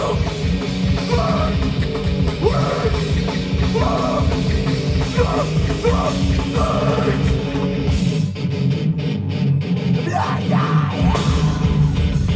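Hardcore band playing live: distorted electric guitars, bass and drums with vocals over them. About eight seconds in the low end drops away for a few seconds before the full band comes back in.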